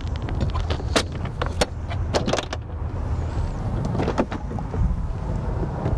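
Clicks and clacks of a Beechcraft Bonanza G36's rear cargo door handle and latch as the door is unlatched and swung open: a cluster in the first two and a half seconds and another pair about four seconds in, over a steady low rumble.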